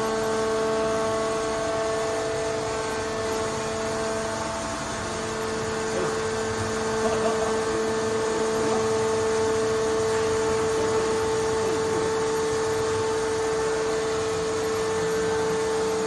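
Hydraulic power unit of a small scrap metal baler running with a steady hum; its main tone falters briefly about four seconds in.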